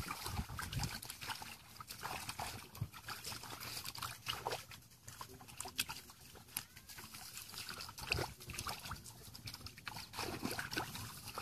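Shallow muddy water sloshing, with irregular small splashes, as several people wade and grope with their hands through it.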